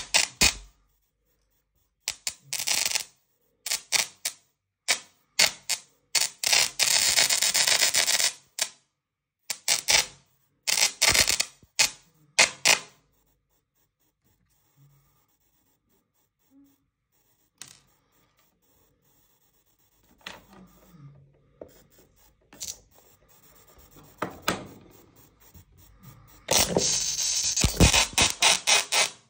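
Musical solid-state Tesla coil discharging: its arcs crackle and buzz in short, rhythmic bursts, with pauses between them. After a long quiet stretch in the middle, it starts up again near the end as a dense, loud run of arc buzzing.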